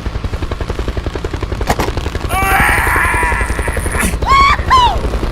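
Cartoon vehicle soundtrack: an engine-like sound effect with a fast, even low pulse, with squeaky gliding chirps over it about halfway through and twice more near the end.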